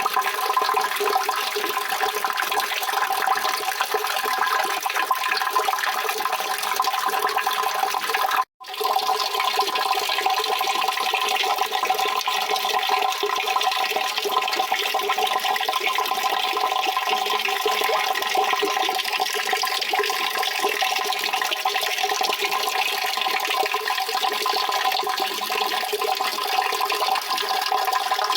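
Steady rushing water, a continuous even wash of sound that cuts out for a split second about eight and a half seconds in.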